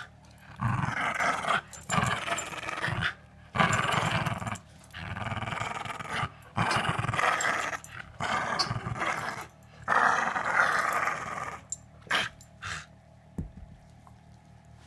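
Two dogs, a Shiba Inu and an Alaskan Malamute puppy, play-growling in repeated rough bouts with short pauses between them as they tug over a red ball. The growling stops about two seconds before the end.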